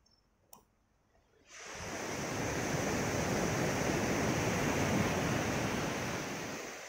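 A wave breaking and washing up a gravel beach: a rush of surf that swells up suddenly about a second and a half in, holds, then fades near the end.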